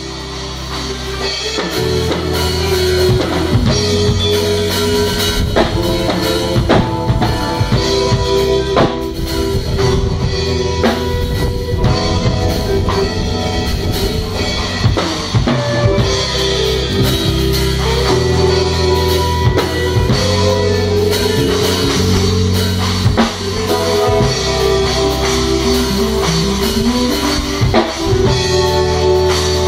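Live band jam: a drum kit playing a steady groove with kick, snare and rimshots under electronic keyboards, the keyboardist playing split keys so the left hand carries the bass line. It builds in over the first couple of seconds.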